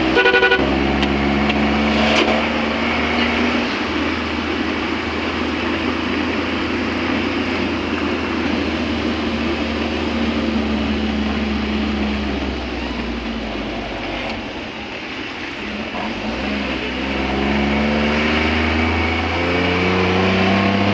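A motor vehicle's engine running with road noise, heard from inside the cab while driving. About two-thirds of the way through the engine note drops, then it climbs in pitch again as the vehicle accelerates near the end.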